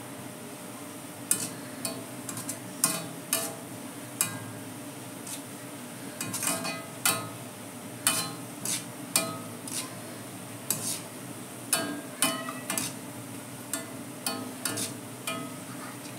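A wire-mesh skimmer stirring sliced onions in hot oil in an iron kadai, scraping and clinking against the pan at irregular intervals over a steady frying sizzle. The onions are being fried golden into birista.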